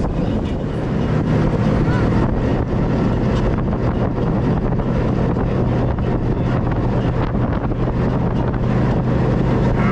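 Hydra-Terra amphibious tour vehicle's engine running steadily under way, a low even drone that firms up about a second in, heard from its open-sided passenger deck with wind buffeting the microphone.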